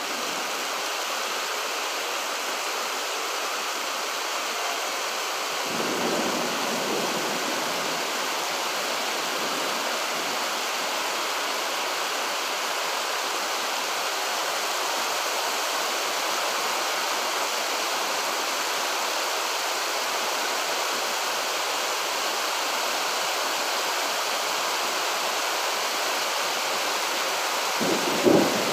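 Steady rain, an even hiss throughout, with two brief low rumbles, one about six seconds in and a louder one near the end.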